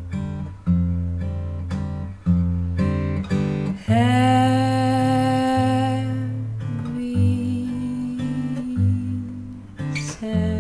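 Acoustic guitar fingerpicked in a repeating pattern of plucked notes over a bass line. About four seconds in, a woman's voice holds one long sung note for a couple of seconds.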